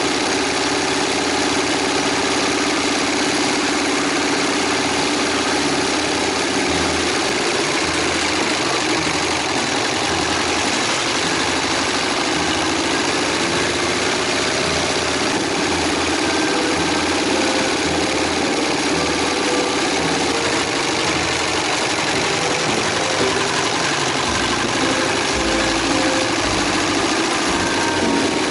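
Harley-Davidson Sportster's V-twin engine running steadily as the motorcycle is ridden along a road, with a constant rush of wind and road noise over it.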